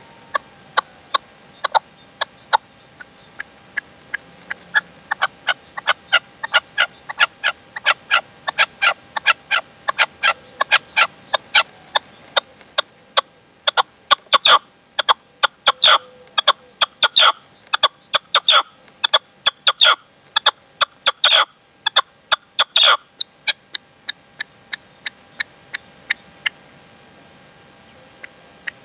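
Red-legged partridge calling: a long run of short, sharp clicking calls, several a second. The calls grow loudest and thickest through the middle, then stop near the end.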